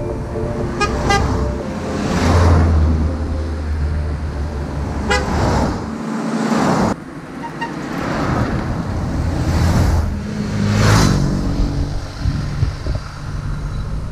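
A string of vintage and classic cars driving past one after another, each engine and its tyres swelling and fading as it goes by. There are a few short horn toots, near the start and about five seconds in.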